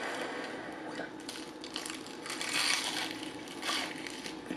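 Crisp breading of Jollibee spicy fried chicken crunching as it is bitten and chewed, with the loudest crunches a little past halfway through.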